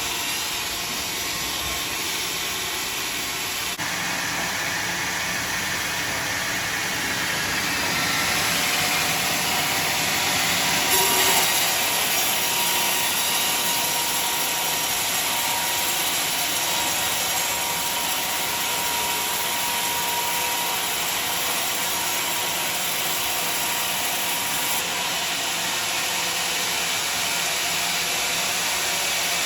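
Sawmill saw running and cutting through a large log: a steady, loud machine noise that grows louder and brighter about a third of the way in.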